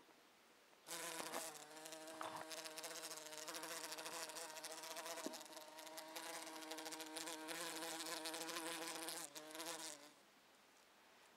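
Bumblebee buzzing as it beats its wings while trapped against a window frame, trying to get out. The steady, even-pitched buzz starts about a second in and stops near the end.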